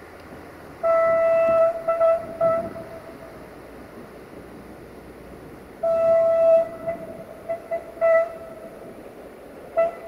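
Horn of a Siemens Desiro VT642 diesel multiple unit sounding a single-pitched pattern. A long blast about a second in is followed by two short toots. A second long blast comes around six seconds, with several quick short toots after it, and another blast starts near the end.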